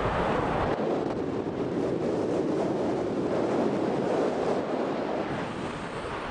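Wind rushing over the microphone in paraglider flight: a steady, unpitched rushing noise, with no engine running.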